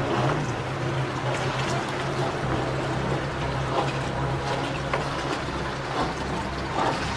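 Motor cruiser's engine running at low speed with a steady low hum as the boat pulls out of the lock chamber; the hum drops to a lower tone about two and a half seconds in. Water noise runs underneath.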